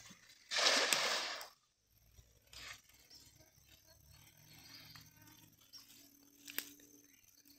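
A weighted cast net landing on the river: one brief splash lasting about a second, about half a second in. After it, quiet with a faint splash and a single sharp click near the end.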